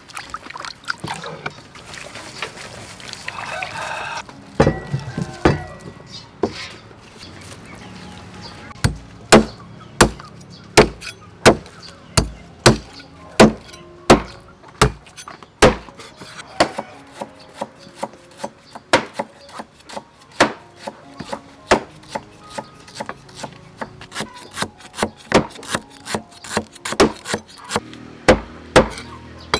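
A meat cleaver chopping pork on a thick wooden chopping block, with sharp knocks about one and a half a second, a few pauses, and quicker strokes near the end. Before the chopping starts, water sloshes as vegetables are washed by hand in a metal basin.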